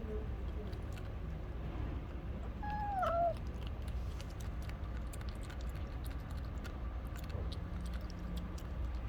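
A stray cat gives one short meow about three seconds in, its pitch holding and then dipping at the end, as it begs for a churu treat. A steady low rumble runs underneath.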